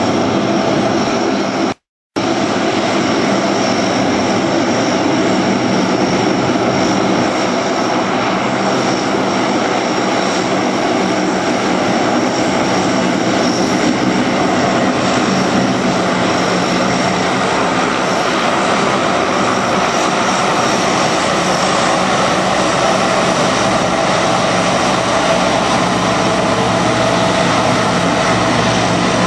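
Lockheed C-130 Hercules' four turboprop engines running on the ground, a loud steady drone with a thin high whine over it. The sound cuts out for a moment about two seconds in.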